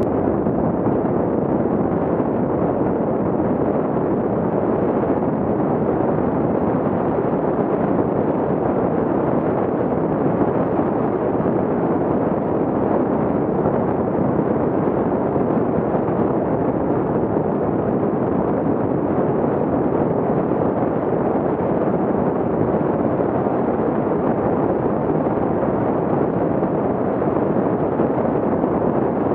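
Steady, muffled rush of wind buffeting an action camera's microphone on a fat bike riding fast, about 25 to 36 km/h, down a packed-snow road, with no breaks or distinct events.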